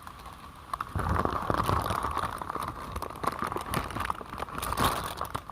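Close crinkling and rustling handling noise with many small crackles, starting about a second in and continuing.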